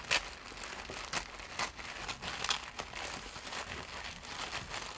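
Tissue paper crinkling and crackling in irregular bursts as hands handle and peel at a sticker seal to unwrap a parcel, with the sharpest crackle right at the start.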